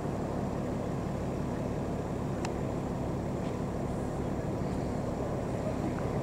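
Steady low rumble with a faint continuous hum, engine-like, with one short faint click about two and a half seconds in.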